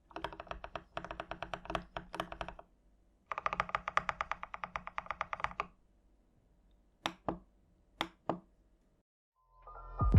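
Typing on a TM680 65% mechanical keyboard: two fast runs of keystrokes, then four separate key presses. Music comes in near the end.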